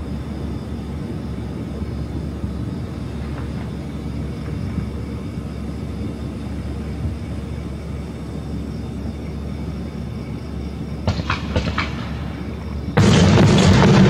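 A steady low rumble, then a few sharp crackles about eleven seconds in, and a loud firework bang near the end that rings out into a long echoing decay.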